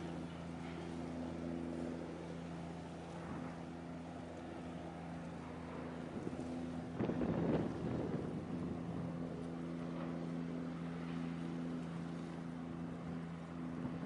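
Steady low drone of a container ship's engine, with wind buffeting the microphone, strongest in a gust about seven seconds in.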